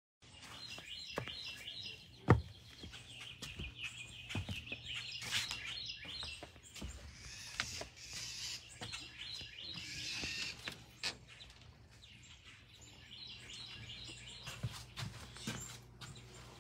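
Songbirds chirping in short, repeated calls, with scattered clicks; the loudest sound is a single sharp knock about two seconds in.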